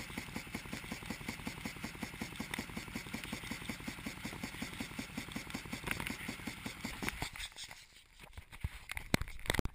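Garden sprinkler water spraying onto and around the camera, a steady hiss with a rapid, even pulsing of about six or seven beats a second. After about seven seconds the pulsing stops, and a few sharp knocks follow near the end.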